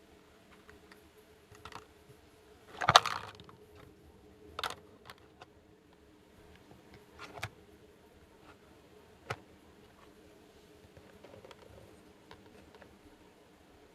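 Small plastic toy pieces being handled and set down: a short burst of clattering and rustling about three seconds in, then scattered single clicks and taps.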